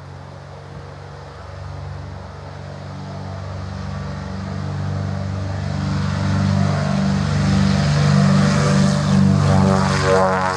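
Britten-Norman Islander's twin engines and propellers running at take-off power, growing steadily louder as the aircraft rolls along the runway, with a pulsing beat between the two engines over the last few seconds.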